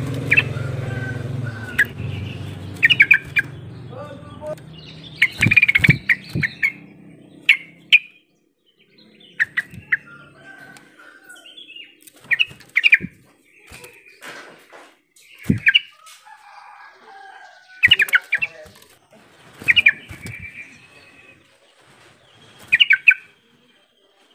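Yellow-vented bulbul giving short bursts of chattering calls every two to three seconds, with wing flutters as it hops about its cage. A low engine hum fades out over the first few seconds.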